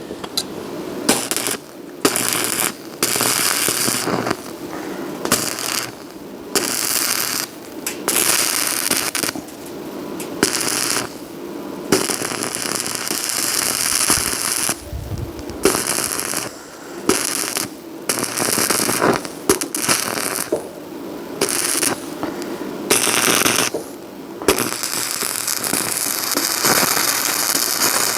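Electric arc welding: the arc crackles and sputters in a series of runs a second to a few seconds long, broken by short pauses between welds.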